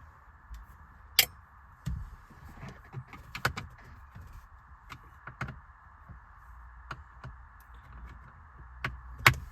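Scattered clicks and taps of hand-tool work with a T20 Torx driver on the screws under a plastic steering column cover, over a faint steady hiss. Two sharp clicks stand out, one about a second in and one near the end.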